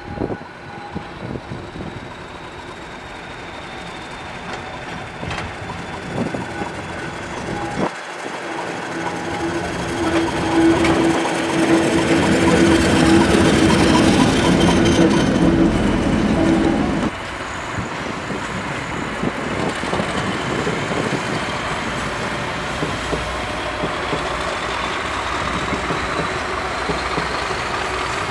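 Class 50 diesel locomotive's English Electric sixteen-cylinder engine working hard on the move, growing louder as the locomotive closes in and passes beneath, loudest with a steady hum from about ten seconds in. It then drops suddenly to a quieter, steadier engine sound from the locomotive further off.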